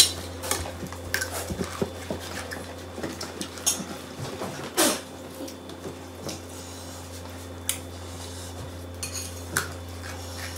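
Irregular clinks and scrapes of a spoon against a ceramic bowl as fish paste is mixed by hand, over a steady low hum.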